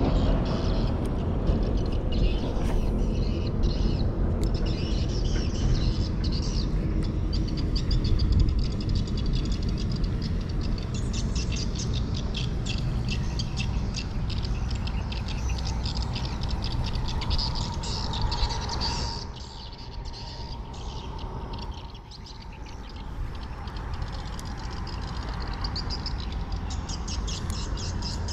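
Birds chirping in rapid, busy runs of high notes, thickest in the second half, over a steady low rumble that eases off for a few seconds about two-thirds of the way through.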